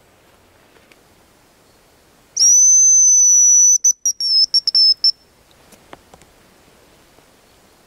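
Hazel grouse whistle lure blown once, imitating the bird's song: a long, thin, high whistle falling very slightly in pitch, then a broken run of short notes.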